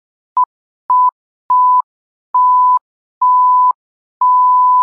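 Six electronic beeps at one steady pitch, each held longer than the last, the final one lasting about a second. There is a small click as each starts and stops. This is the sound effect of a loading-screen intro animation.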